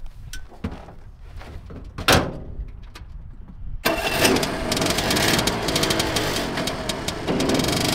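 A cab door of a Piaggio Ape three-wheeler slams shut about two seconds in, then its engine starts about four seconds in and runs steadily.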